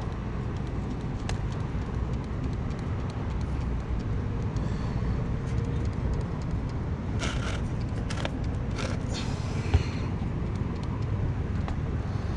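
Steady low outdoor rumble, like distant traffic or wind, with a few short hisses about seven and nine seconds in and scattered small clicks.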